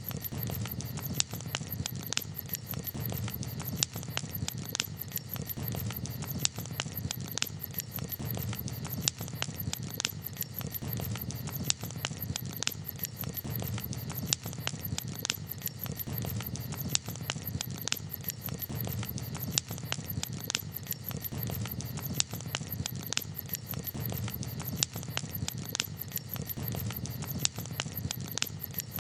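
Wood campfire crackling: frequent sharp pops and snaps over a steady low rumble of the burning fire.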